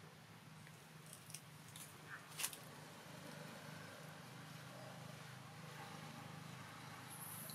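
Quiet ambience: a steady low hum with a few faint soft clicks, the sharpest about two and a half seconds in.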